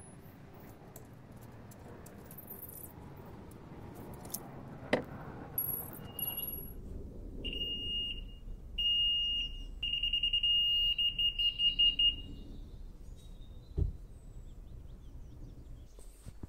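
Laser level receiver on a grade pole beeping with a high, single-pitched tone: a few long beeps about halfway through, then a quick run of rapid short beeps. The beeping signals where the laser level's beam falls on the receiver while the sand is being levelled.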